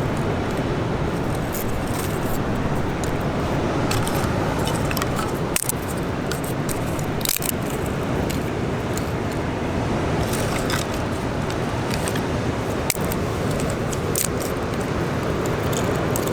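Wood fire crackling, with irregular sharp snaps over a steady rushing background noise.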